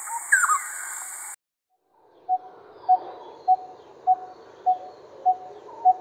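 Coppersmith barbet calling its monotonous 'tuk… tuk… tuk', seven short low notes evenly spaced a little over half a second apart. Before it, a bird call sounds over a steady high insect buzz and is cut off after about a second.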